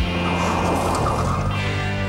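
Background music, with a noisy mechanical sound effect lasting about a second near the middle as the cartoon Cadillac's wheel hub changes shape.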